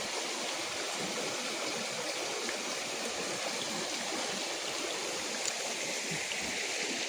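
Stream water running steadily, an even rushing with no breaks.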